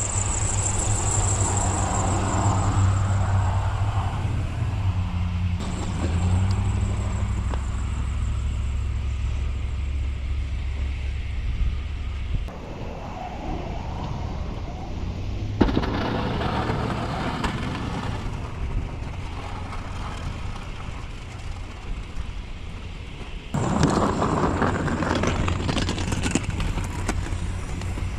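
Snow-plow truck engine running while plowing, its sound shifting abruptly several times.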